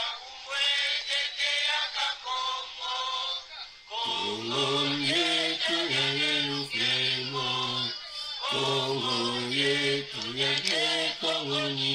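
Slow singing with long held notes. For the first four seconds it is in a higher register, and after that in a lower one, with short breaths between phrases.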